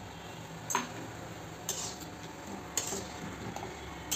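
A utensil knocking and scraping against a metal kadhai as jaggery lumps are worked into the simmering tamarind pulp: a few sharp clinks about a second apart.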